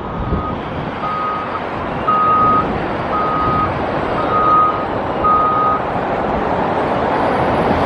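Construction vehicle's reversing alarm beeping at a single steady pitch, about one half-second beep per second, then stopping about six seconds in, over steady outdoor noise.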